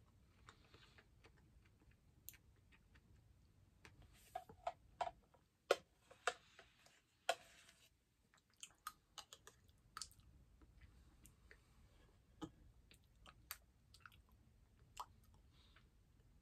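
Faint eating sounds: a metal spoon clicking and scraping against a plastic cup of yogurt parfait, with soft chewing and mouth sounds. The clicks come thickest in a cluster about four to eight seconds in, then sparser.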